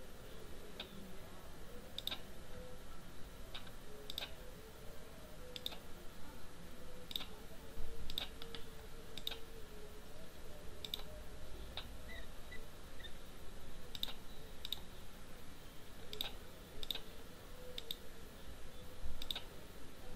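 Computer mouse clicks: single sharp clicks at an irregular pace, about one every second, over a faint hum.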